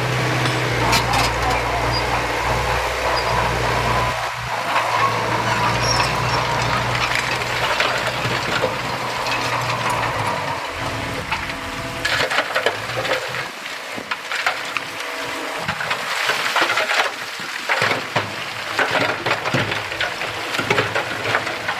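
A heavy machine's diesel engine running steadily, fading about halfway through. It gives way to a dense, irregular crackling of stones and soil tumbling and sliding.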